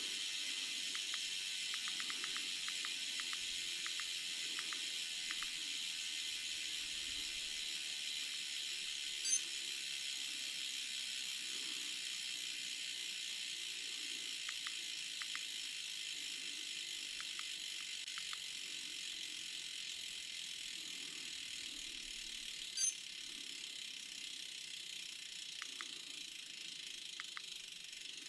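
Steady hiss with scattered faint light clicks, some in short quick runs, and two short sharp ticks about nine and twenty-three seconds in.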